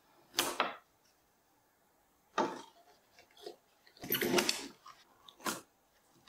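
Small wooden tray frames and thin wooden dividers being handled on a router table: four short knocks and scrapes of wood on wood and on the table top, the longest and loudest about four seconds in.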